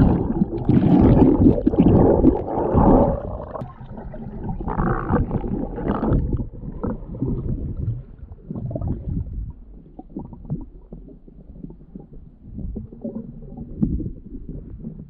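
Muffled underwater water noise heard by a submerged camera: the splash of a diver going in, then churning and bubbling of water for the first few seconds, settling into quieter, irregular low rumbles and knocks as he swims along the bottom.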